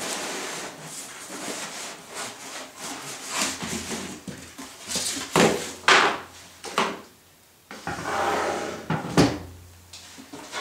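Cardboard box and packing being pulled open and handled, with flaps rustling and scraping. Several sharp knocks come in a cluster about halfway through, and there is one more near the end.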